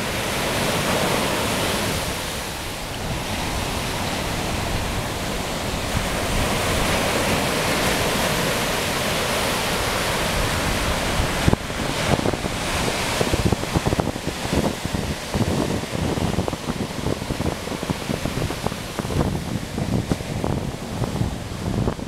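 Ocean surf breaking and washing up a sandy beach, a steady loud rush. From about halfway, gusts of wind buffet the microphone with rapid low rumbling thumps over the surf.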